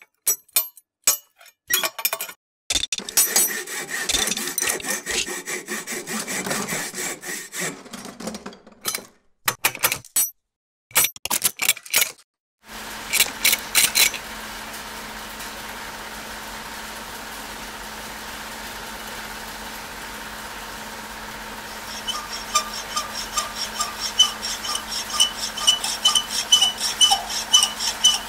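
Metal lathe cutting a small tool-steel part, heard in short clipped bursts of rasping and clinking that cut off abruptly about 13 seconds in. Then a milling machine runs with a steady hum, and from about 22 seconds its end mill ticks about three times a second as it cuts flats along the part.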